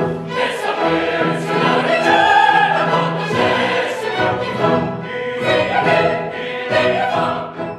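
Opera chorus singing with the orchestra, loud and continuous, cutting off suddenly at the end.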